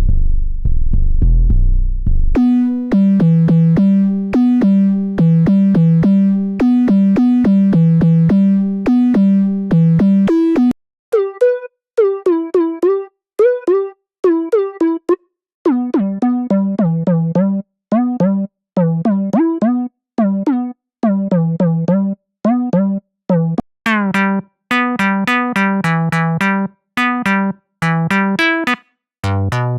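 SynthMaster One software synthesizer playing a repeating sequenced riff of short notes, switching between preset sounds. A deep bass patch changes about two seconds in to a keyboard-like patch. Near the middle the notes turn sparser and bend in pitch, then a brighter patch with a rising sweep comes in near the end before a deep bass sound returns.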